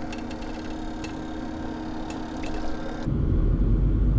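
Quiet water sounds with a few small drips and clicks as a bass is held in the water for release. About three seconds in, this gives way abruptly to a louder, steady low rumble of wind on the microphone.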